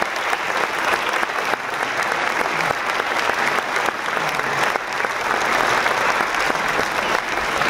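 Concert hall audience applauding steadily, a dense clapping of many hands.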